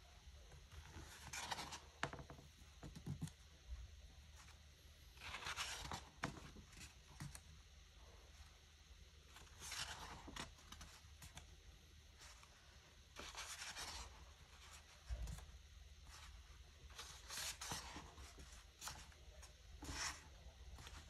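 Paper pages of a photo book being turned by hand: a soft swish of paper about every three to four seconds, six times.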